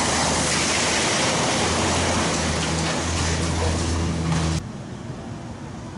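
Brick masonry falling from a wall pulled down by an excavator: a long, loud rushing clatter of rubble over the excavator's diesel engine running steadily, ending abruptly about four and a half seconds in.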